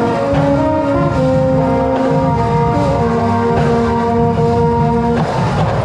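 Marching band playing: brass holding a sequence of sustained chords over drums, ending on a long held chord that cuts off about five seconds in.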